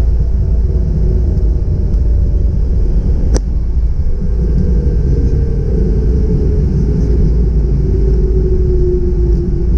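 Cessna Citation M2 twin-turbofan jet rolling along the runway, heard from inside the cockpit: a steady low rumble with faint tones slowly falling in pitch. A single sharp click about three and a half seconds in.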